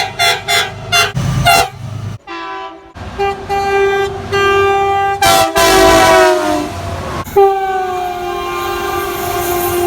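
Train horns sounding chords of several notes: a string of short quick toots, then after a sudden break two longer blasts whose pitch drops as the train passes, then one long held blast.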